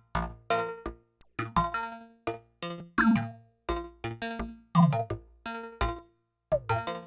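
Make Noise modular synthesizer, its Multiwave voices triggered by PoliMATHS functions, playing short plucked electronic notes in an uneven rhythm. Each note dies away quickly, and a few sweep quickly downward in pitch.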